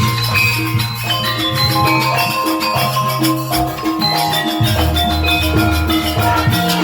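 Campursari band playing an instrumental passage: a moving bass line under pitched melody notes, with busy rhythmic percussion.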